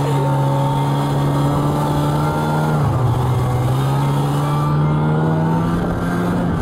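Snowmobile engine running under throttle. Its pitch climbs slowly, dips briefly about three seconds in, then climbs again before falling near the end.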